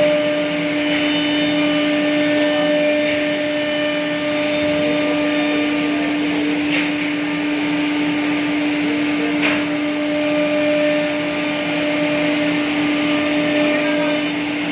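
CNC router spindle running with a steady, even hum over a continuous rushing noise, and a couple of brief faint scratchy sounds midway.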